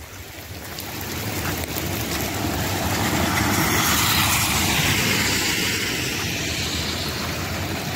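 A vehicle passing on a wet road, its tyre hiss swelling to a peak about halfway through and then easing off.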